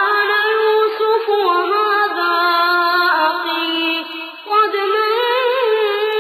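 Melodic Quran recitation in tajweed style by a single high-pitched voice, with long held and ornamented notes and a short breath pause about four seconds in.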